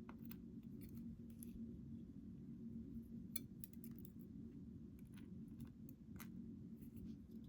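Faint, irregular small metallic clicks of tweezers picking the pins out of a disassembled Ruko 600 lock cylinder, over a steady low hum.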